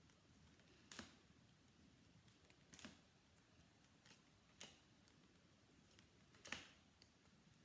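Near silence with four faint, sharp clicks, evenly spaced about two seconds apart.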